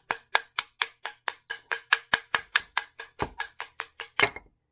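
Quick, steady taps, about four or five a second, knocking the Suzuki DRZ400's inner water pump housing to free it from the inner clutch case. The last couple of taps are louder, and they stop shortly before the end.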